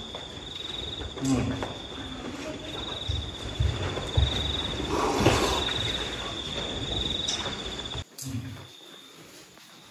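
Crickets chirping in a steady, pulsing high trill, over soft low thumps and faint murmuring of people walking. The trill drops away suddenly about eight seconds in.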